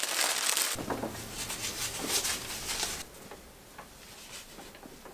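Paper packaging crinkling and rustling as something is unwrapped, changing about a second in to quieter handling rustles and soft knocks, then settling to faint room tone for the last couple of seconds.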